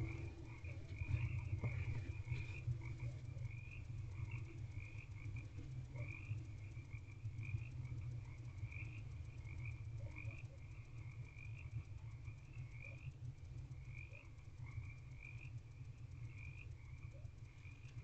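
A chorus of frogs croaking, a continuous run of short, rapidly repeated calls, over a steady low hum.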